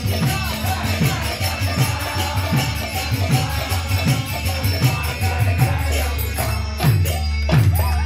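Devotional kirtan music: a drum beating steadily a little faster than once a second under the constant jingling of hand cymbals, with group singing coming up near the end.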